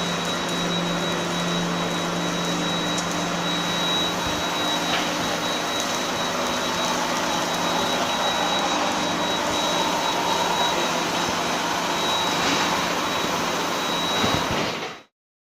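Steady machinery noise from a heat-treatment line, with a thin high whine and a low hum running through it. The sound cuts off abruptly near the end.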